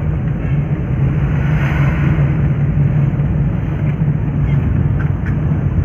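Engine and road noise heard from inside a moving car's cabin, a steady low drone with hiss. The hiss swells briefly about two seconds in.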